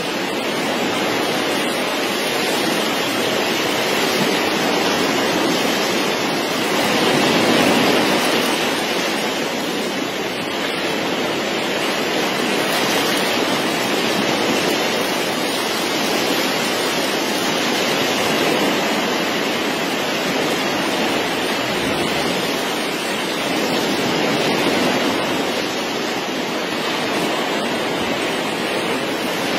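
Steady rushing and sloshing of sea water, swelling and easing every few seconds.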